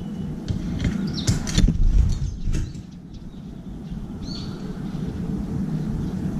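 Steady low rumble of city traffic, with a short burst of wing flaps about one and a half to two seconds in as sparrows scatter from a seed tray, and a couple of short high bird chirps.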